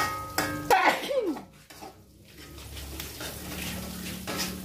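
Metal spatula scraping and knocking against a wok during stir-frying. There are several quick strokes in the first second, then it goes quieter, with a few single knocks over a low steady hum.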